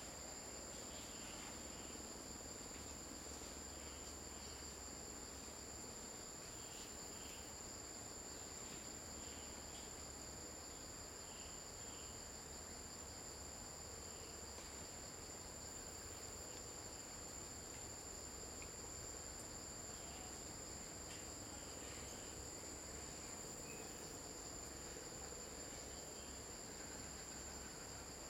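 A chorus of insects calling steadily in two even, high-pitched tones, held without a break.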